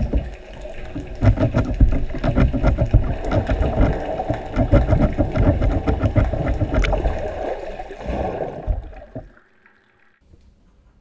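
Water churning and bubbling heard underwater, a loud low rumble full of small clicks and pops, which stops suddenly about nine seconds in.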